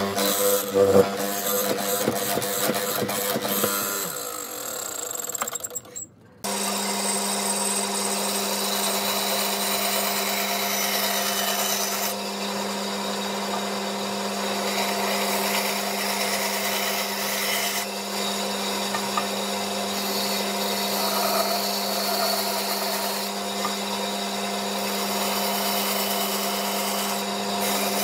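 A hollow-chisel mortiser runs into pine with repeated plunges for about four seconds, then fades out. After a brief gap about six seconds in, a bandsaw runs with a steady motor hum while its blade cuts through pine blocks.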